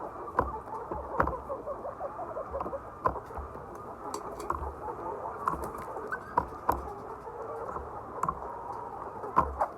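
A flock of many laying hens, their small overlapping calls making a dense steady chatter, with frequent sharp clicks and taps through it.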